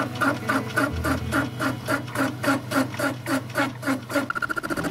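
Metal lathe cutting a turned workpiece, with a rhythmic pulse about three times a second over the machine's steady hum. About four seconds in, the sound switches to a faster, higher pattern where the footage is sped up four times.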